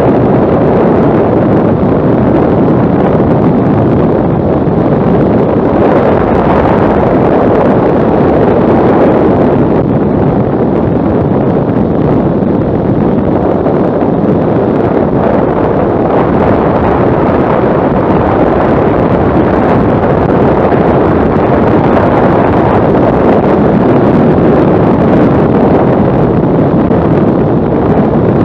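Steady, loud wind rush buffeting the microphone of a motorcycle riding at road speed, with the bike's road noise underneath.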